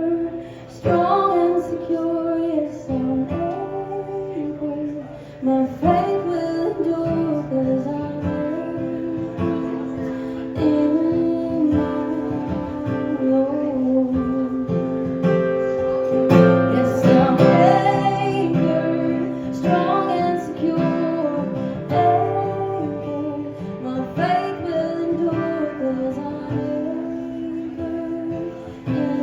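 Acoustic guitar playing an instrumental passage of a song, strummed chords with a melody line moving above a held low note.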